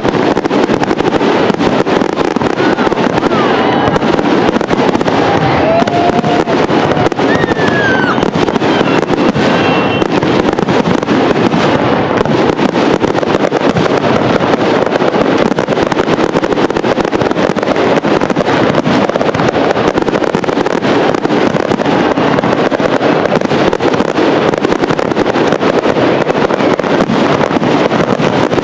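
Aerial fireworks bursting in a dense, unbroken barrage: many shells going off at once, the bangs and crackles running together.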